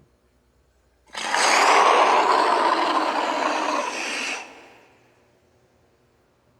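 Creature roar sound effect for the fictional dinosaur Sobek or one of its hatchlings: one long, noisy roar that starts about a second in, lasts about three and a half seconds and then fades out.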